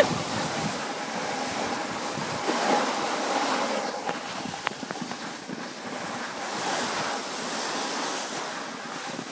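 Steady rushing hiss of a snowboard sliding over snow, mixed with wind on the microphone.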